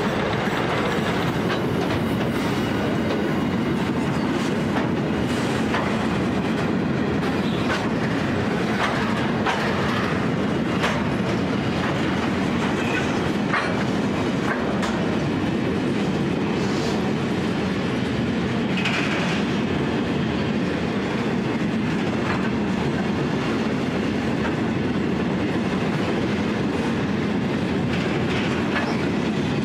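Empty VHAF grain hopper wagons rolling past on steel wheels: a steady rumble and rattle, with irregular clicks as the wheels pass over rail joints.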